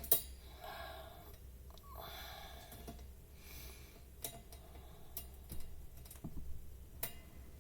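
Faint clicking and scraping of a screwdriver working a screw into a fan's housing, with a few sharper clicks about a second apart at first and then near the middle and end; the screw is binding and hard to drive.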